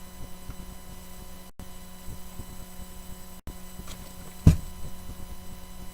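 Steady electrical hum picked up by a laptop's built-in microphone, with one sharp knock about four and a half seconds in. The sound cuts out for an instant twice.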